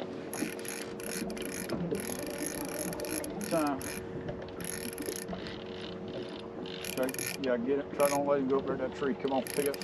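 Spinning fishing reel being worked while a fish is played toward the landing net, its gears and clicker ratcheting in short runs. A steady low hum runs underneath.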